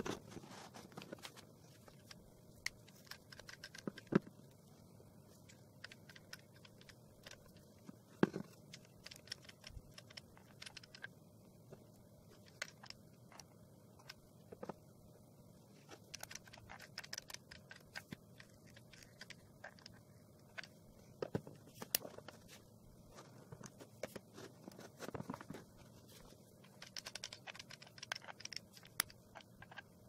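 Small stones clicking, knocking and scraping on a cardboard box lid as gloved hands set them down and shuffle them into place, with a few sharper knocks around four and eight seconds in.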